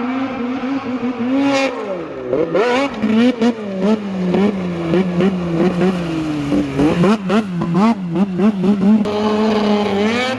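Two-stroke snowmobile engine, a Polaris 600R race sled, revving up and down over and over as the throttle is worked, its pitch swinging with each blip. Onlookers judge it to be running a little rich.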